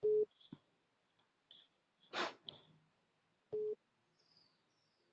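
Two short identical electronic beeps, steady single tones about three and a half seconds apart, with a brief breath-like noise between them.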